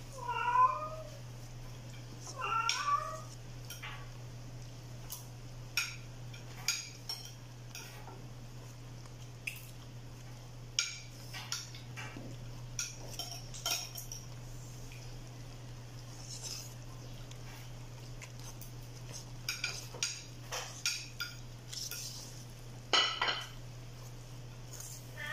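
A metal spoon scraping and clinking against a large stainless-steel mixing bowl while stirring flour batter, in scattered sharp clicks. A cat meows twice in the first few seconds, over a steady low hum.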